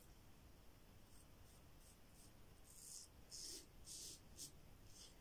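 Faint, scratchy short strokes of a Yaqi Final Cut adjustable double-edge safety razor with a Treet Platinum blade, set low at 2.5, cutting stubble through shaving lather. The strokes start about three seconds in, several in a row.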